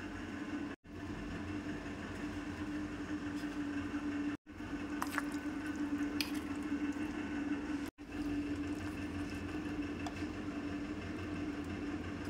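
A steady machine hum with one sustained low tone, with a few faint light taps of fried littis being set onto a stainless-steel plate. The sound drops out for an instant three times.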